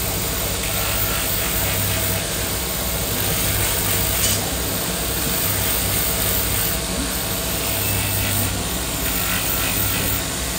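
Belt-driven abrasive wheel running steadily with a low hum, while a metal fork held against it grinds with a continuous rasping noise.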